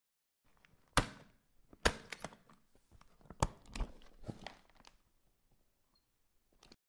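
A flat metal box being handled and opened: four sharp clicks and knocks from its lid and catches, with rustling of cloth and paper between them.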